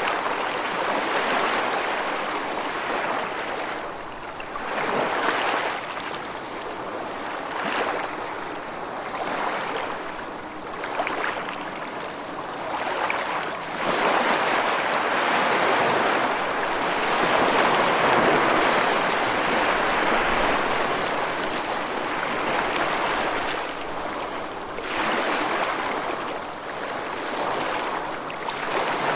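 Steady rushing water, swelling and easing in level every few seconds.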